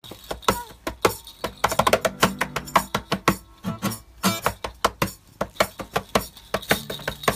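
Acoustic guitar being slapped and plucked by a toddler's hands: irregular taps on the strings and body, with short notes ringing out between them.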